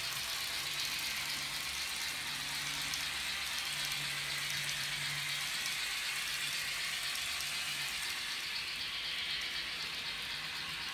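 N-gauge model train running on the layout track: a steady rattling hiss of wheels and running gear, with a faint low hum that comes and goes.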